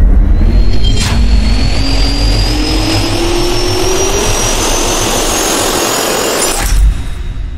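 Jet-turbine sound effect spooling up: a loud rush with a whine that rises slowly in pitch, a sharp click about a second in, then a sudden cut-off near the end.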